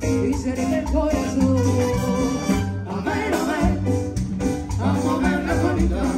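Live Latin dance band music played through a PA: a steady bass beat under keyboard and other instruments, with a woman singing over it.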